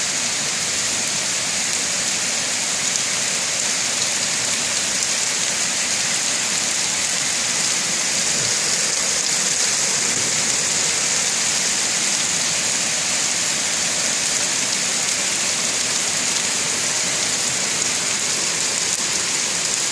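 Rain falling steadily in a summer thunderstorm, an even hiss with no change in strength.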